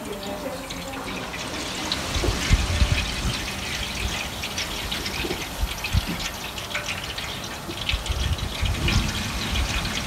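Water trickling and splashing as grapes are handled in a basin of water, with many small crackles and irregular low thumps.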